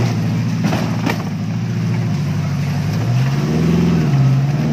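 Offroad 4x4's engine working in low gear as the vehicle crawls through a muddy, rocky stream bed, revving up about three seconds in. A few sharp knocks in the first second.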